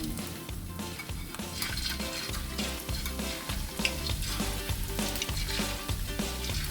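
Breaded chicken pieces frying in hot oil in a pan, a steady sizzling and crackling, with light upbeat background music underneath.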